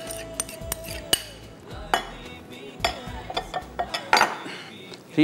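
Spoon clinking and scraping against glass mixing bowls as chopped tomatoes are spooned into chicken and yogurt, a handful of sharp clinks about a second apart.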